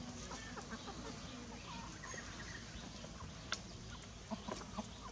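Chickens, a cockerel with chicks, clucking and peeping softly in short calls. There is one sharp tap about three and a half seconds in and a few more near the end.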